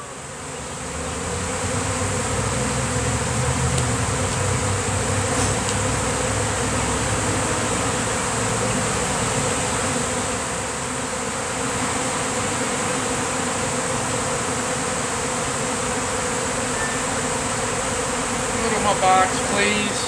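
A swarm of honey bees in flight, a steady buzzing hum of many wings, the swarm airborne and circling while it looks for where to settle.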